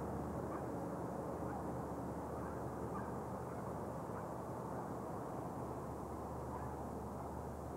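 Steady low rumble of distant road traffic and wind heard from high above, with faint short chirps every second or so.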